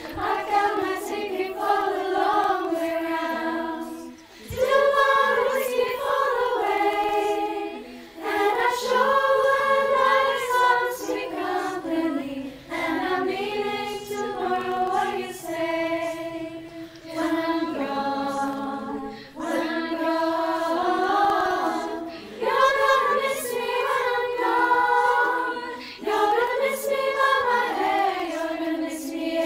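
Girls' choir singing in harmony, many voices layered from separate home recordings, in phrases of a few seconds with brief breaths between.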